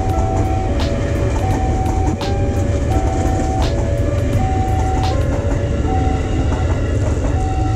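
Electric commuter train passing at speed, with a heavy rumble and occasional sharp clacks of its wheels over rail joints. Over it, the level crossing's warning alarm sounds a steady two-tone signal, alternating high and low about every 0.7 seconds.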